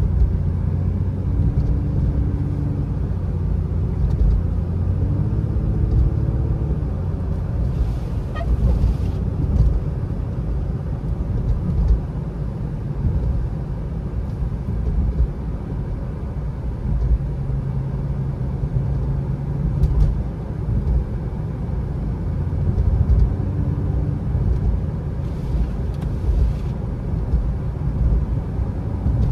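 Inside the cabin of an Infiniti Q50 3.7 driving on a snowy road: the 3.7-litre V6 and tyres make a steady low rumble, with engine tones that rise and fall as the speed changes. Two brief hisses come through, one about eight seconds in and one near the end.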